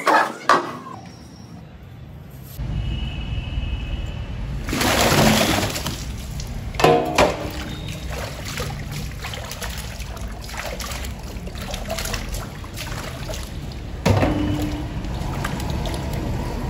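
Water sloshing and splashing in a tub as beetroots are rubbed and swished by hand to wash them, with two sharp knocks at the start and several louder splashes along the way.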